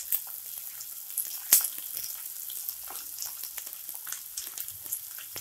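Chopped onion, green chilli, ginger and garlic sizzling in hot oil in a wok, crackling and popping as a wooden spatula stirs them. One sharp click stands out about a second and a half in.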